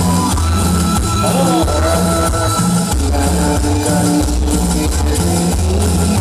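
Cumbia played loud through a sonidero's dance sound system, with a steady bass beat about twice a second under the melody.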